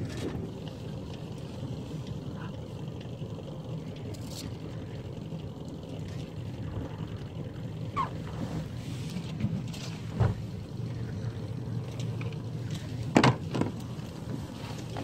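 Steady low rumble on board a small sailboat, with a few sharp clicks and knocks as the small battery navigation light is handled and fitted; the loudest click comes near the end.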